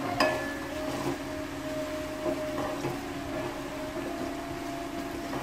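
Chopped onions frying in oil in an aluminium pot, stirred with a wooden spoon, under a steady background hum. A sharp knock of the spoon against the pot comes right at the start.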